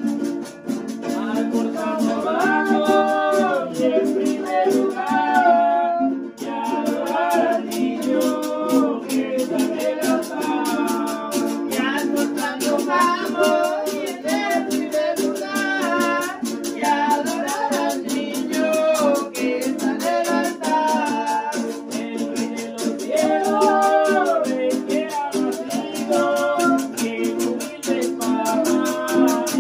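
Voices singing a devotional song together, accompanied by strummed string instruments and a steady shaker rhythm.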